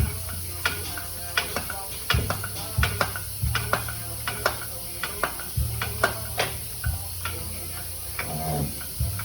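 Metal hand tools clicking and clinking irregularly, about two sharp clicks a second, against a low steady background tone that comes and goes.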